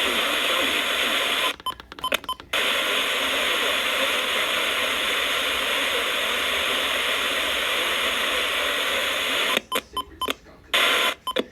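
FM radio static: a steady hiss with no station audio, cut by brief dropouts and clicks about one and a half seconds in, then breaking up into choppy bursts near the end.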